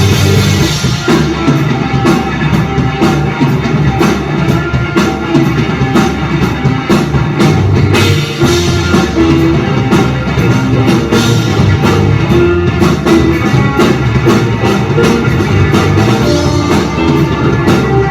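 Live rock band playing loud, with a drum kit keeping a steady beat over guitar and bass.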